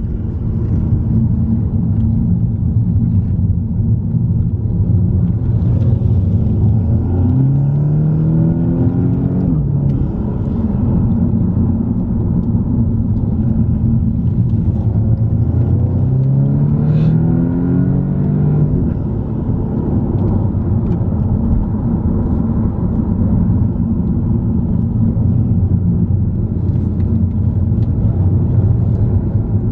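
Car engine and road rumble heard from inside the car as it drives a winding mountain road, the engine note climbing twice as the car accelerates.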